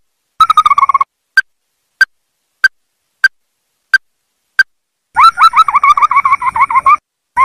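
Ruddy-breasted crake calling: a brief trill, then a run of single short notes about one and a half a second, then a longer rapid trill of stuttering, falling notes near the end.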